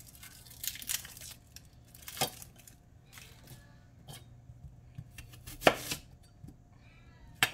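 Dry onion skin crackling and tearing as it is peeled off by hand, then a santoku knife cutting into the onion with a sharp knock on the plastic cutting board about two thirds of the way through.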